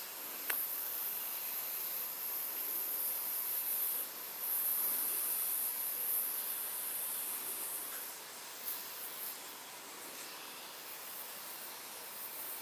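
A sealed Coca-Cola can hissing as a hair-fine jet of cola sprays out under pressure, like an airbrush, from a leak with no visible hole. The high hiss breaks briefly about four seconds in and fades after about eight seconds. A single click comes just after the start.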